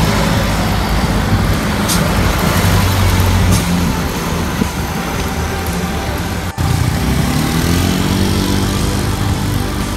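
Street traffic: motor vehicle engines running steadily over road noise. The sound drops out briefly about six and a half seconds in, after which an engine's pitch rises.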